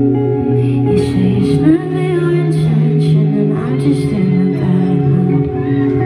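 Live band music: electric guitar and drum kit with cymbal hits under a woman's singing voice.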